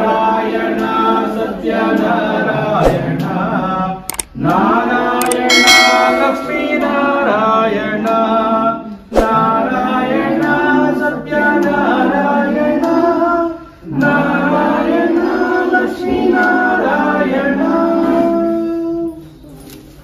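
Voices singing a devotional chant together, unaccompanied, in long phrases with short breaks for breath every four to five seconds. The singing fades out near the end.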